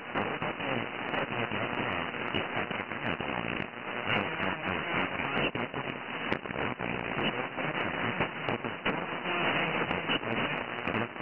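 Crackling radio static from a software-defined radio receiver tuned to the CB channel next to a strong AM transmission, listening for splatter from it. The audio is cut off above about 3 kHz by a narrow, stock-CB-style receive filter.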